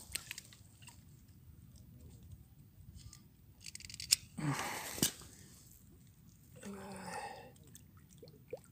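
Crackling and rustling close to the microphone, dry stalks and leaves and clothing being handled, with scattered clicks, one sharp click about four seconds in, and two louder noisy rustles around the middle.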